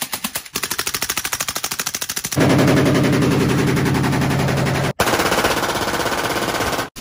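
Full-auto gunfire in three quick cuts. First, a suppressed AK rifle (Arsenal SLR-107 with subsonic ammunition) fires a rapid string of separate, quieter shots at about eleven a second. From about two and a half seconds in, a much louder, denser unsuppressed burst from a short AK (SLR-104UR) runs until a sudden cut near five seconds; then a Glock 18 fires a full-auto burst that stops abruptly just before the end.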